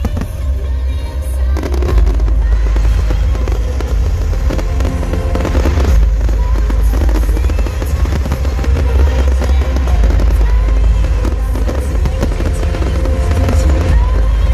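Fireworks crackling and banging in a dense run over loud pop music with a heavy bass beat.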